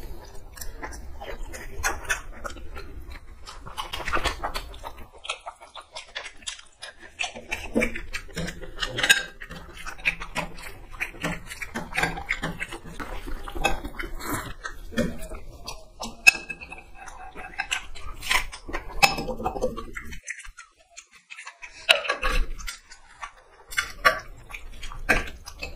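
Eating sounds: rice and curry squished and mixed by hand on steel plates, with chewing, lip smacks and many small clicks. Near the end a steel serving spoon clinks in the glass curry bowl.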